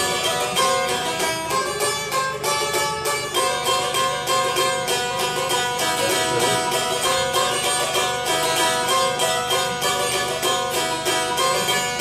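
Long-necked plucked lute played solo: a quick picked melody of many notes a second over steadily ringing drone pitches.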